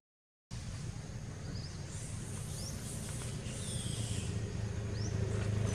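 Outdoor ambience after half a second of silence: a steady low rumble that grows slightly louder toward the end, with a few short, high chirps and one longer call about midway.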